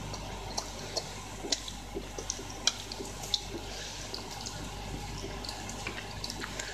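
Shiba Inu eating dry kibble from a bowl: irregular crunches and clicks of chewing and kibble moving in the bowl, over a low steady hum.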